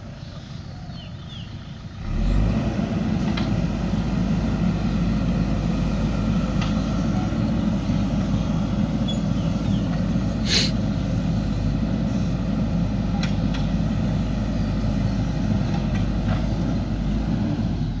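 Diesel engine of a JCB 3DX backhoe loader, which revs up sharply about two seconds in and runs hard and steady as the hydraulic backhoe arm digs soil. The engine eases off near the end. A single sharp clank comes about halfway through.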